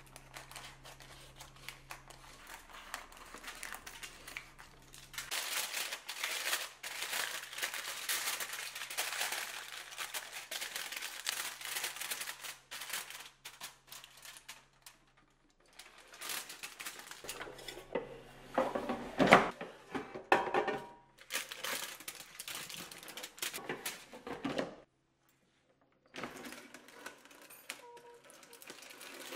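Aluminium foil crinkling and parchment paper rustling as a cake tin is lined and covered, with a dense crackle for several seconds. Later come a few sharp clunks and clatters as the tin goes into the air fryer's metal basket.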